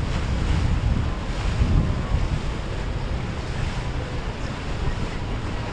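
Wind buffeting the microphone with a low rumble, over the steady wash of sea waves.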